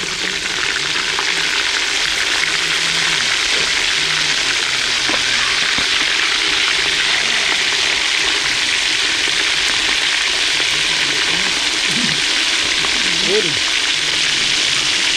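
Thick fish steaks deep-frying in a wok of hot oil, a loud, steady sizzle, as a metal spatula turns them.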